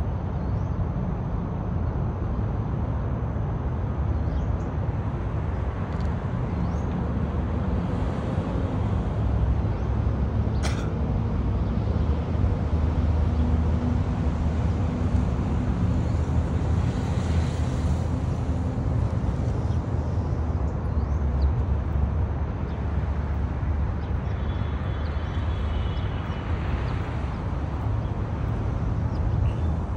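Steady low background rumble, with a single sharp click about eleven seconds in.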